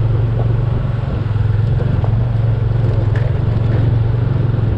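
A motorcycle engine running steadily under way, a constant low drone that does not change in pitch.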